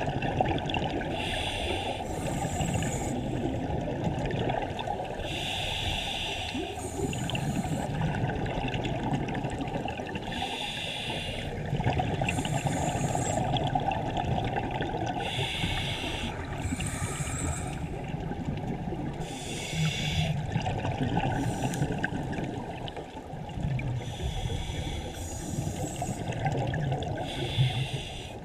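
A scuba diver breathing through a regulator underwater: a hissing inhale and a bubbling exhale, repeating every few seconds over a steady low rumble of water.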